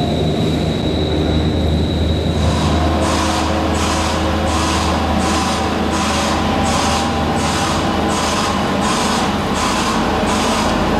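Diesel telehandler driving past close by, its engine a steady low rumble. From about two seconds in, a hiss pulses about twice a second: a white-noise warning alarm on the machine.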